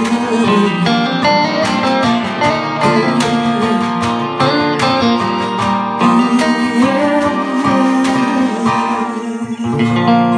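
Live acoustic music: a strummed acoustic guitar with fiddle and a woman singing. Near the end the strumming stops and a final chord rings on.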